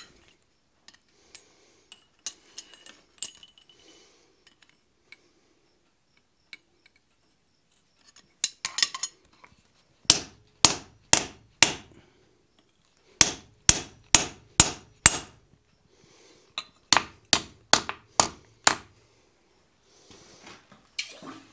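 Blacksmith's hammer striking a hand punch driven into red-hot steel on an anvil bolster plate, punching a screw hole: a few light taps first, then three runs of sharp metal-on-metal blows at about three a second.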